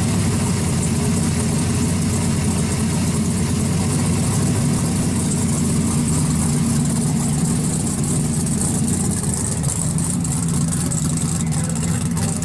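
1969 Camaro Z28 drag car's V8 idling steadily at a loud, even level.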